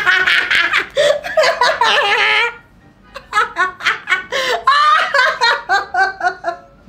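A man and a woman laughing out loud together: a continuous burst of laughter, a brief pause about two and a half seconds in, then a run of quick, rhythmic laughs about five a second.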